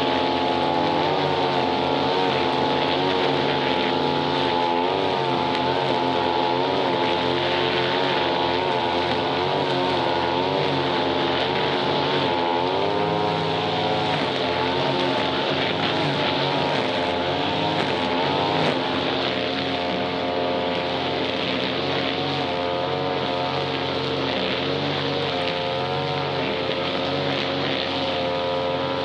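Two-stroke brush cutter engine running at high speed, its pitch wavering up and down as the throttle and cutting load change.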